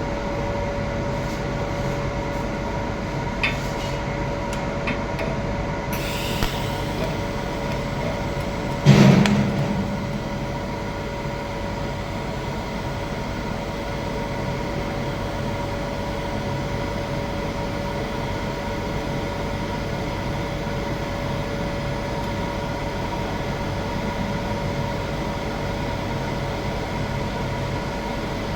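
Electric arc welding on a pipe root pass: a steady arc hiss with a constant hum and whine from the welding set. A few light clicks come early, and one sharp loud knock about nine seconds in.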